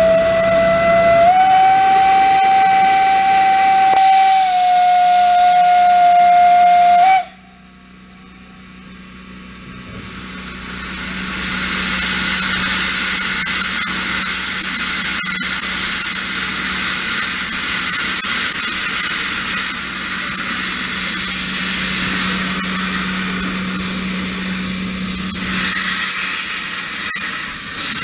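Small steam locomotive's whistle blowing one long chord of several notes for about seven seconds, stepping up slightly in pitch near the start and cutting off sharply. After a short lull, a loud steady hiss of steam venting from the locomotive builds up and carries on.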